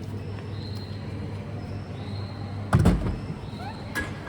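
Two heavy thumps about a second and a half apart, car doors shutting, over a steady low hum.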